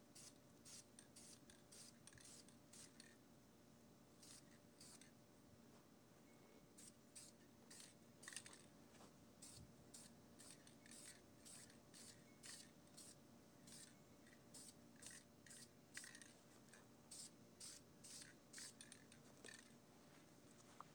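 Aerosol spray-paint can spraying in many short, faint hissing bursts, often two or three a second, with a few pauses of a second or two between runs.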